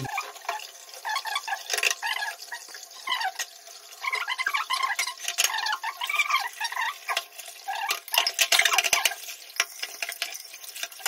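Kitchen clatter: utensils stirring and scraping against pots and dishes, with a hiss of sizzling or running water underneath and many sharp clinks.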